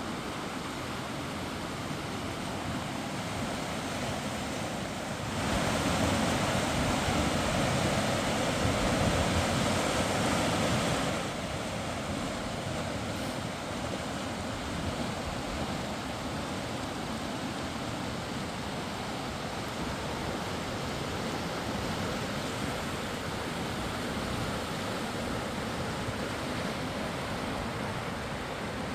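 Mountain river rushing steadily, louder for about six seconds starting around five seconds in.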